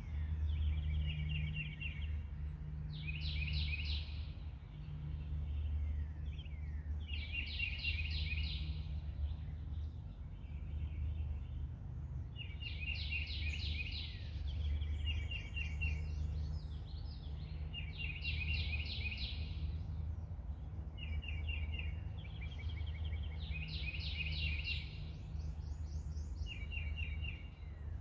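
A songbird singing the same short phrase of rapid notes over and over, about every five seconds, over a steady low hum.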